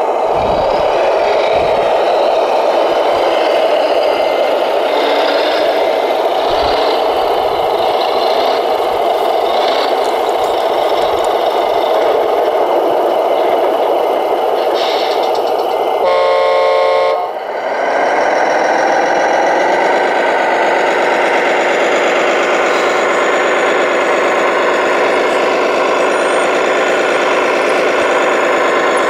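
Radio-controlled Volvo L250G wheel loader running steadily as it works gravel. About halfway through, a truck air horn blasts for just over a second, then an RC Globe Liner tractor unit's engine sound runs, rising in pitch briefly as it revs and then settling into a steady run.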